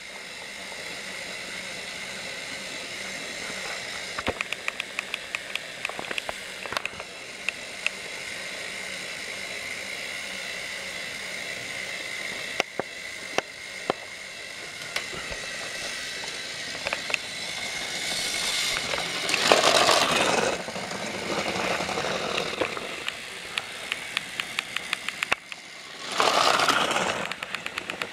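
Battery-powered Trackmaster toy train running on plastic track: a steady thin motor whine with runs of rapid, regular clicking. It swells into two louder rushes, about two-thirds of the way in and again near the end.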